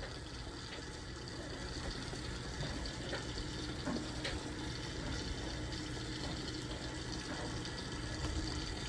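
Steady rushing kitchen background noise, with a few faint light clicks.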